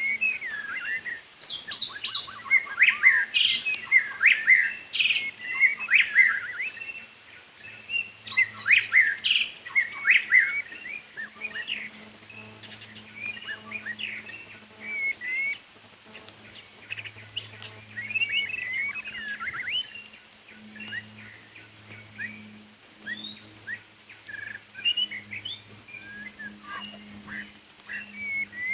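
White-rumped shama singing a rich, varied song of whistles, glides and sharp notes, delivered in quick phrases with short pauses between them.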